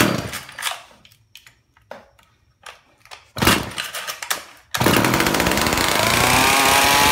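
Vintage two-stroke chainsaw being pull-started: a few short starter pulls, then a longer sputtering pull about three and a half seconds in. It catches just under five seconds in and runs, revving higher toward the end.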